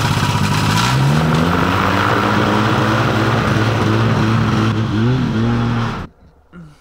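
Propeller engine of a caged paramotor trike running loud, its pitch rising as the throttle opens about a second in while it taxis, wavering briefly near the end, then cutting off suddenly about six seconds in.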